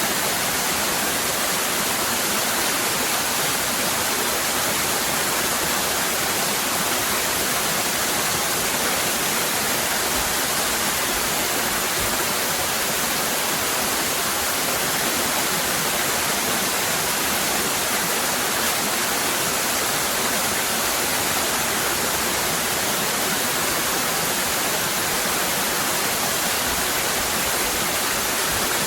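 Waterfall cascading, a steady even rush of falling water.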